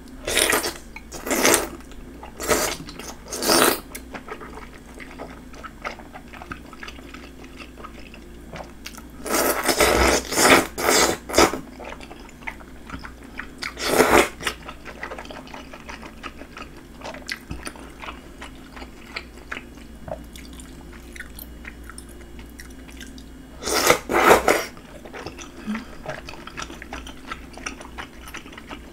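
Wide Chinese glass noodles in spicy red sauce slurped and chewed close to the microphone. Loud slurps come in bursts: four in quick succession at the start, a run of several about ten seconds in, one more around fourteen seconds, and two together near the end, with soft chewing between them.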